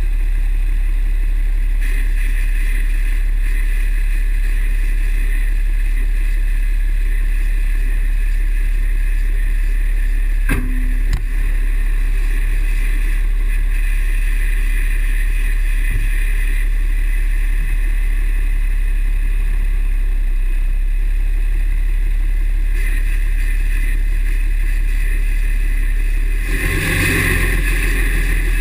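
2009 Dodge 6.7 Cummins turbo-diesel running with a deep steady drone and a steady high squeal over it. The squeal comes only with the exhaust brake engaged, and the owner thinks it sounds like the turbo. A single knock comes about a third of the way in, and the sound swells briefly near the end.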